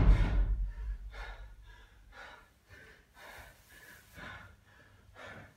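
A heavy medicine ball dropped on a rubber gym floor, its low boom dying away at the start, followed by an exhausted athlete's rapid, heavy panting after a set of wall balls.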